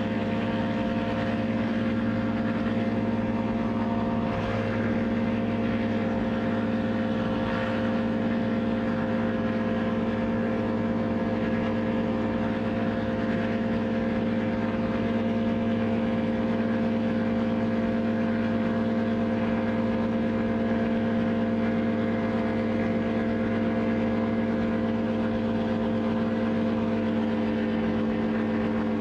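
Paramotor trike's engine and propeller running at a steady, unchanging pitch through the takeoff roll and climb.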